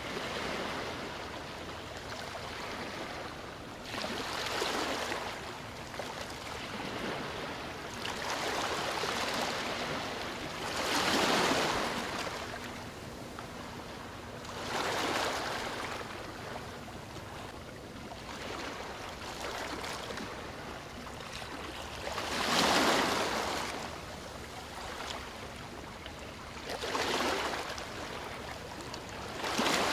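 Sea waves breaking and washing on the shore, a rush of surf that swells and fades every few seconds, with two bigger waves standing out.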